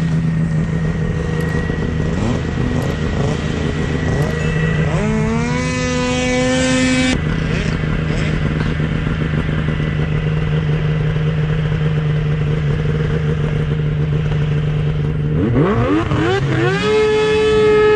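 Two-stroke triple snowmobile engine running steadily at low revs, then revving up quickly about five seconds in and holding the higher revs for a couple of seconds before breaking off abruptly. It runs steadily again, then revs up once more near the end and holds high.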